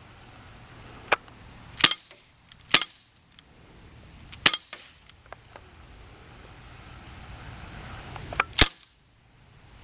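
P99 DAO CO2 blowback airsoft pistol firing four sharp shots at uneven intervals, with the last one after a longer pause; fainter clicks fall between them.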